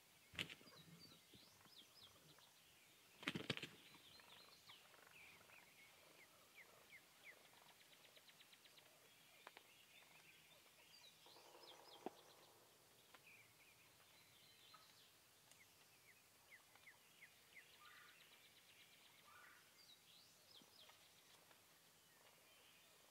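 Faint songbirds chirping and trilling throughout. About three seconds in comes a louder burst lasting about half a second, and there is a smaller sharp sound just before it.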